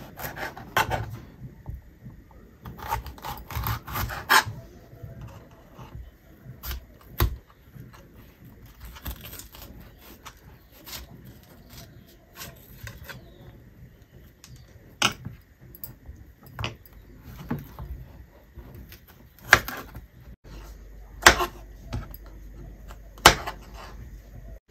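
Knife cutting capsicum (bell pepper): irregular taps and knocks of the blade, with a quick run of chopping strokes a few seconds in and several sharper single knocks in the second half.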